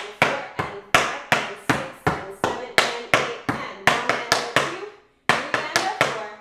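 Metal taps on tap shoes striking a wooden tap board: a quick, even run of sharp clicks, about three to four a second, with a brief break about five seconds in before the taps resume.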